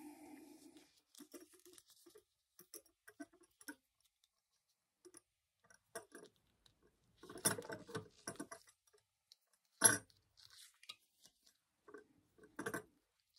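Faint handling noise from thread tails being tied off by hand on a small sewn piece: scattered light rustles and small clicks. There is a louder cluster about seven and a half seconds in, and a sharp click near ten seconds.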